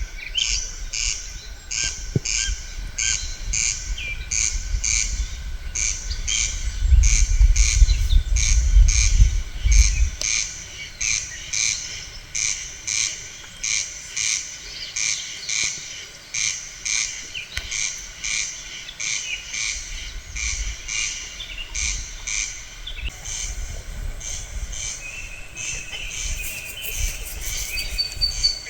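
An animal call, a short rasping pulse repeated evenly about twice a second, with birds calling in the background. A low rumble of wind on the microphone comes in about a third of the way through.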